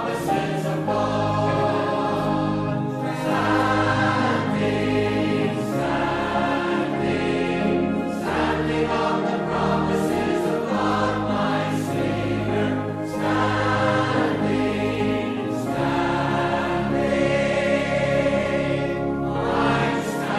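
A choir singing a slow hymn with instrumental accompaniment.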